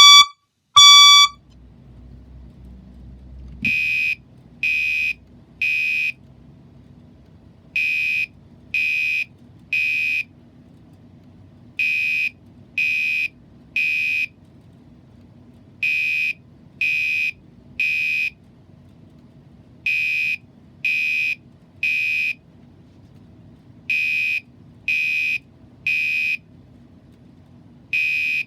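Fire alarm sounder beeping in the temporal-three evacuation pattern: three half-second beeps, then a pause, repeating every four seconds. At the start, the last of three louder, lower, pure-toned beeps from the previous alarm signal ends about a second in.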